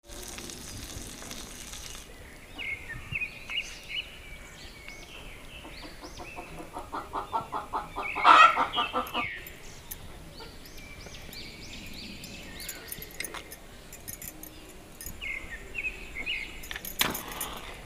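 A chicken clucking in a quickening run that builds to a loud cackle about eight seconds in, with small birds chirping in short runs throughout. A sharp click sounds near the end.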